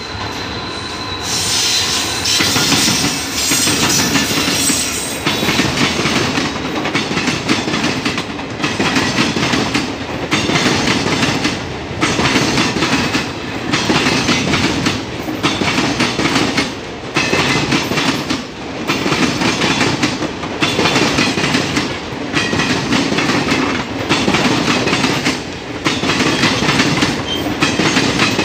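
Passenger train's coach wheels clattering loudly over the crossover's rail joints and points. The clatter comes in groups that repeat about every 1.7 seconds as coach after coach runs over, after a quieter first second or so.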